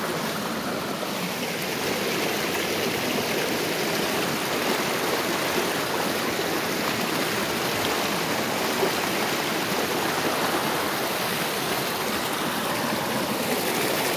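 River water rushing and splashing over rocks in a small cascade, recorded close to the falling water: a steady, unbroken rush.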